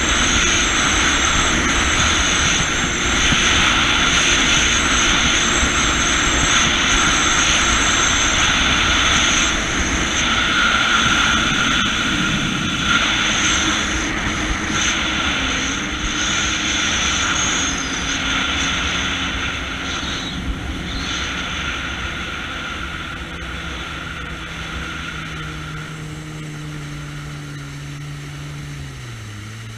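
Jet ski engine running at speed, with water rushing and wind on the microphone. Over the last several seconds it throttles back: the rush fades and the engine note drops in steps toward idle.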